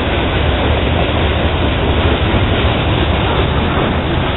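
The tail end of a freight train's boxcars rolling past on the rails, heard under a loud, steady rushing noise with a strong low rumble that does not let up when the last car clears.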